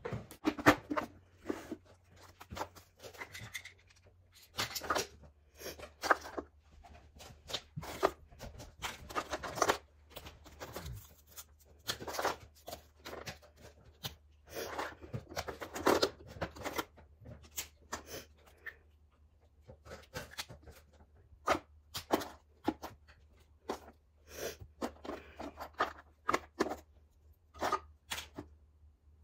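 Small items (hair ties, pens, lip balms, coins) being picked out of a wooden drawer and set down by hand, making irregular clicks, light clattering against the wood and rustling.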